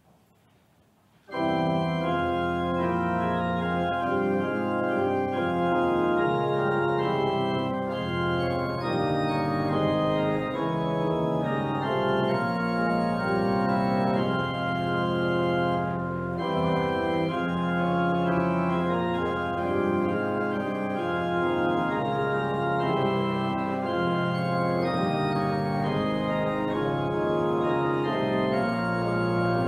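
Organ postlude playing full, sustained chords, starting abruptly about a second in after a brief hush; the closing music of a church service.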